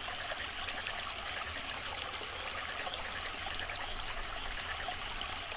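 Aquarium water trickling and splashing steadily, with small bubbling blips now and then.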